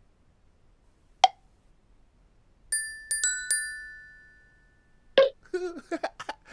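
A single sharp click, then three bell-like chime notes struck in quick succession, each ringing on and slowly fading. Near the end, short vocal sounds from a character begin.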